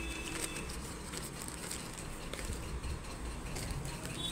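Plastic courier mailer bag rustling and crinkling with scattered small crackles as a cardboard box is pulled out of it.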